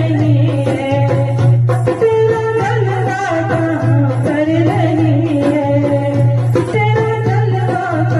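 Hindi devotional bhajan music: a melody with singing over a steady low drone.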